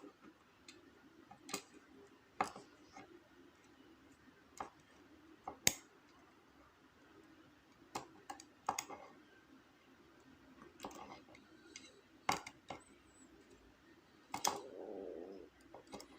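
Faint, sharp metal clicks and taps at irregular intervals, a second or more apart, from small tools working the pins and plug of a disassembled lock cylinder.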